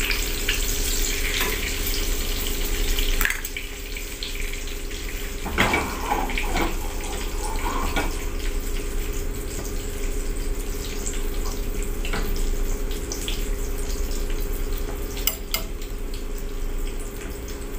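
Oil sizzling steadily in a small frying pan, with a few sharp clinks of metal utensils against the pan and plate.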